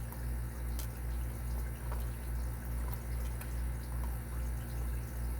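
A steady low hum that swells and fades slowly and regularly, with a few faint light clicks.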